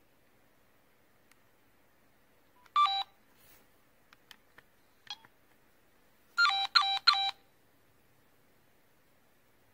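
Nokia 3585i phone's buzzer beeping: one short beep about three seconds in, a few faint clicks, then three quick beeps just before seven seconds. This is the phone's battery-empty alert as it shuts down.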